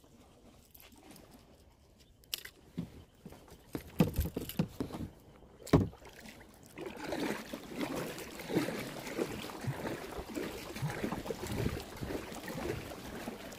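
A few hard thumps on a plastic kayak, loudest about four and six seconds in. Then, from about seven seconds in, a kayak paddle dipping and splashing in the water, with drips, as the kayak is paddled along.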